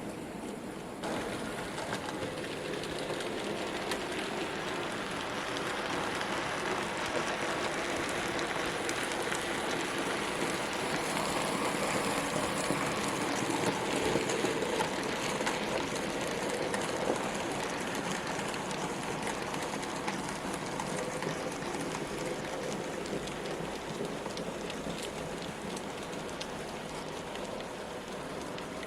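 N gauge model train running on the layout's track, a continuous fine rattle of small wheels on rail joints with the motor's whirr. It grows louder toward the middle and then fades as the train passes the microphone.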